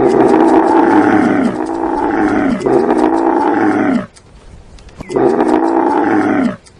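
A large animal calling loudly: three long calls back to back, each falling in pitch, then a pause and a fourth call.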